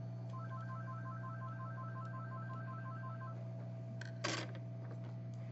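Steady low hum of the hot-air heat gun running while it melts the solder, with a fast electronic beeping trill of three alternating pitches for about three seconds. A single short, sharp click-hiss comes about four seconds in.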